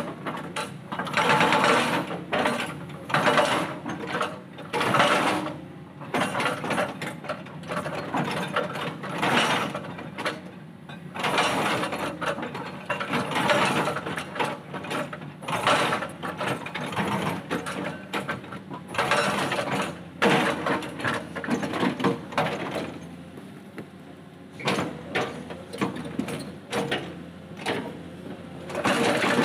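Hydraulic breaker on a Caterpillar 320D excavator hammering boulders in repeated bursts of rapid blows, each lasting one to three seconds with short pauses between them. The excavator's diesel engine runs steadily underneath.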